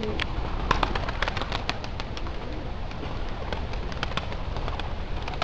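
Buchón pouter pigeons' wings clapping and flapping as they take off from the loft: a quick flurry of sharp claps over the first two seconds or so, thinning to scattered claps after.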